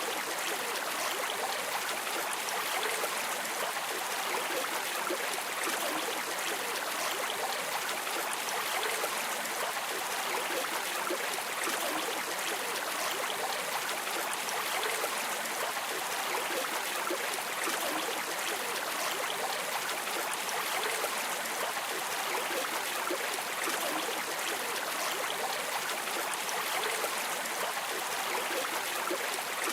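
River water flowing over stones, a steady rushing with fine splashing detail and little bass.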